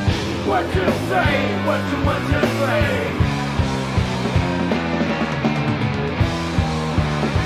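Recorded alternative rock: a band playing with bass, drums and guitar, the melody bending in pitch during the first few seconds.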